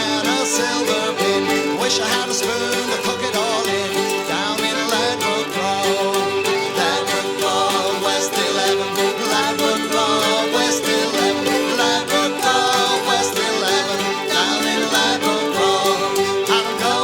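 Folk band playing an instrumental tune, a fiddle carrying the melody over steady held chords.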